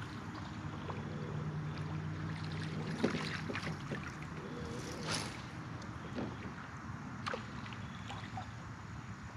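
Electric trolling motor on a bass boat humming low and steady, strongest in the first few seconds, over water lapping at the hull. A few sharp clicks and taps, most likely from the rod and reel being worked, come about 3, 5 and 7 seconds in.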